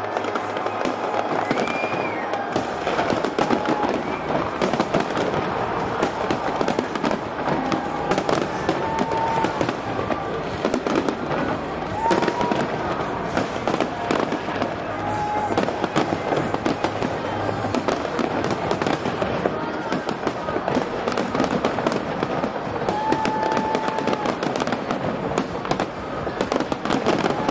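Large fireworks display, shells bursting and crackling in a dense, unbroken stream of sharp cracks and pops, with a few short high whistles now and then.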